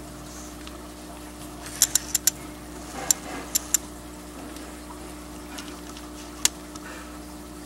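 Aquarium pump humming steadily under a soft trickle of water. A scattering of sharp clicks stands out above it: four in quick succession about two seconds in, three more a second later, and one near the end.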